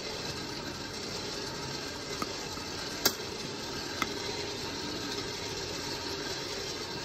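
Barwell electric peanut roaster running with its stirring arm turning coffee beans under the glass lid, a steady noise, with a few sharp pops about two, three and four seconds in, the one near the middle the loudest: coffee beans cracking in first crack.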